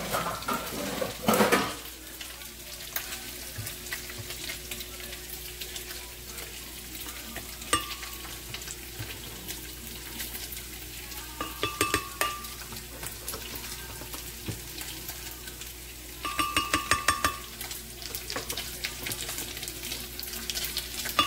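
Pork sizzling and frying in a pan as it browns in its own rendered fat, the broth having cooked off. A few short bursts of rapid clicking come partway through.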